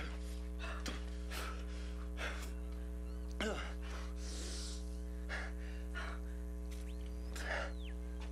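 Television drama soundtrack with a steady low hum underneath and a series of short, sharp sounds and brief breaths or gasps scattered through it, with a short rising and falling squeak near the end.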